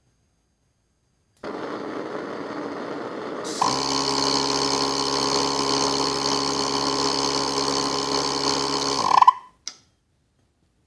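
Small gas burners of a turbine-blade thermal-barrier-coating test rig: a steady hiss starts, the burners light with a jump in level about two seconds later, and they run with a steady roar carrying several fixed tones. They shut off with a brief swell, followed by a single short pop.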